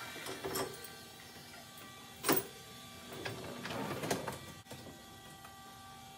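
Dishes clinking and a dishwasher's wire racks rattling on their rails as the bottom rack is unloaded and slid in and the top rack pulled out. There is a sharp clink a little over two seconds in, then a stretch of rattling clatter for about a second and a half.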